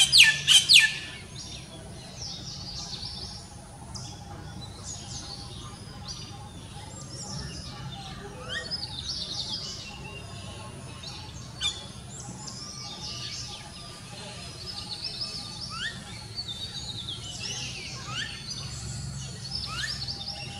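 Common myna giving a quick burst of several loud calls in the first second, then fainter bird chirps and whistles scattered throughout over a steady low background hum.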